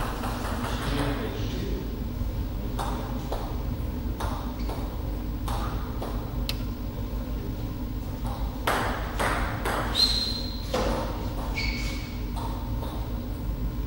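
Table tennis ball bouncing on the table and off bats between points: scattered sharp taps and clicks, with a few short ringing pings about ten seconds in, over a steady low hum.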